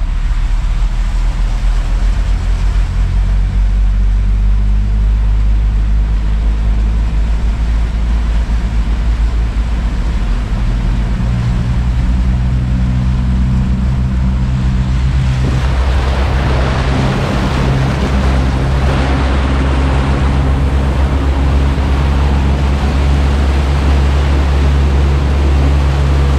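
A 4x4's engine running steadily as it drives through floodwater, its note rising a little about ten seconds in. From about halfway, a loud rushing and splashing of water churned up by the wheels and bow wave joins it.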